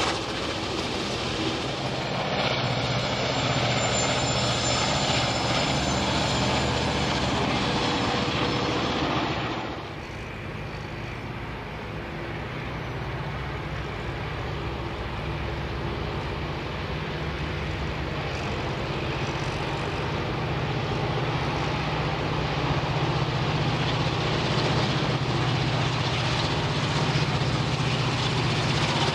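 Diesel locomotives hauling a train. First a steady rumble and rush of a 421 class locomotive and its wagons passing close. About ten seconds in the sound changes to an 81 class diesel leading 421 class units under power, a steady low engine drone that grows slowly louder as the train approaches.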